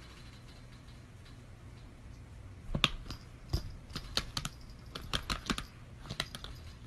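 Laptop keyboard keys clicking in irregular, uneven taps, starting about three seconds in, over a low steady hum.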